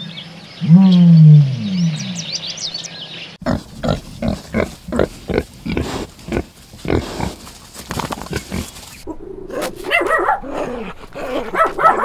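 Birds chirping over a few loud, low calls that fall in pitch. Then, about three seconds in, piglets grunting in quick short grunts for several seconds. Near the end this gives way to a busier mix of animal calls.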